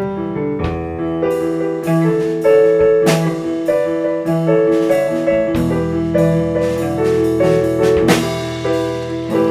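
Background music led by piano, with drums.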